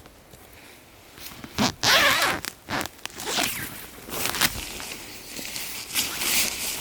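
A zipper being pulled in several rasping strokes, the loudest about two seconds in.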